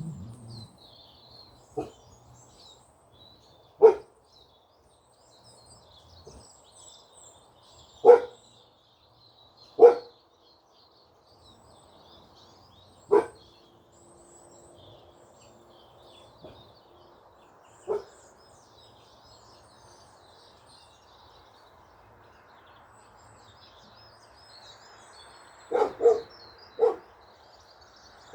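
A dog barking in single barks a few seconds apart, with three barks close together near the end. Small birds chirp faintly throughout.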